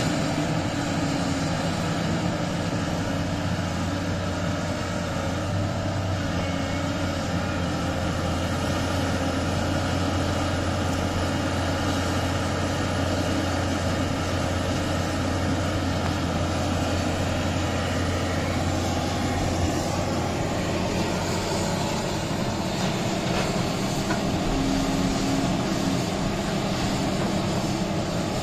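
Heavy diesel engines of a Volvo EC950E mining excavator and an XCMG XDE150 haul truck running steadily, with a deep continuous hum, as the excavator swings, digs and swings its bucket back over the truck.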